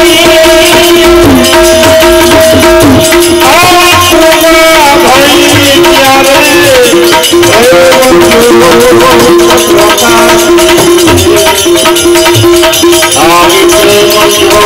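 A man singing a devotional song to his own harmonium, which holds steady notes under the gliding voice, with hand percussion keeping a steady beat.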